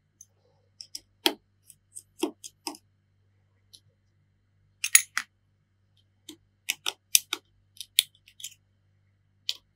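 Irregular sharp clicks and taps of small repair tools and metal parts being handled on and inside an opened iPhone 7, the loudest a few seconds apart, over a faint steady low hum.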